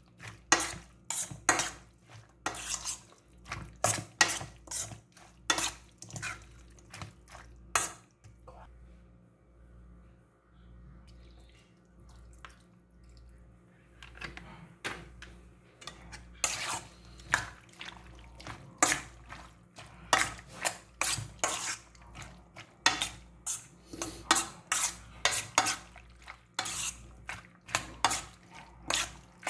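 Metal spoon clinking and scraping against a stainless steel bowl while mixing chopped raw pork and vegetables, about two strikes a second, with a pause of several seconds near the middle.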